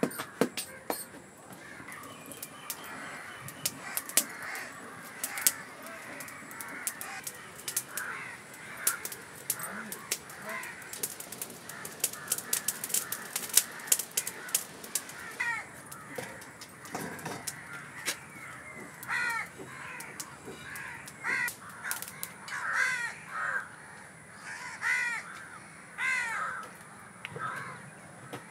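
Crows cawing over and over from about halfway on, short harsh calls often in twos and threes. Before that, a run of sharp clicks, thickest around the middle.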